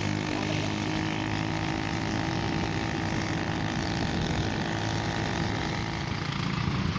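Motorcycle engine running steadily at cruising speed, with wind rushing over the microphone and tyre noise from the road.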